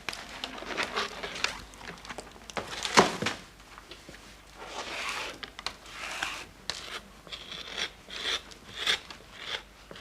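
A set plaster of Paris mould being scraped and cleaned with a hand tool: irregular scraping strokes, with a sharp knock about three seconds in.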